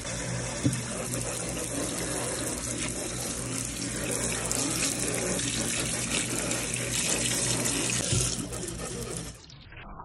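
Kitchen tap running, the water spraying onto produce in a stainless steel sink: a steady splashing hiss that cuts off sharply near the end.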